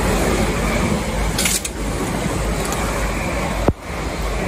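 South Western Railway Desiro third-rail electric multiple unit passing at speed, a steady rush of wheels on rail and air. A single sharp crack near the end, typical of the pick-up shoes arcing on the wet third rail.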